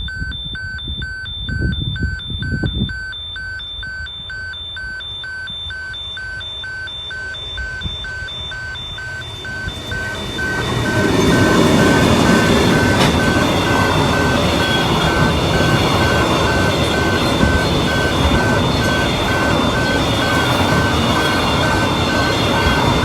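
Railway level crossing warning bell ringing steadily, about two rings a second. About ten seconds in a train arrives and passes; its rumble and wheel noise are loud and drown out most of the bell.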